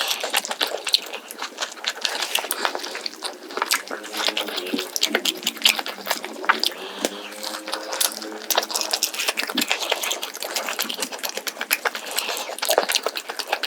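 Close-miked eating: rapid, irregular crunching and smacking clicks of someone chewing crispy scorched-rice whole chicken.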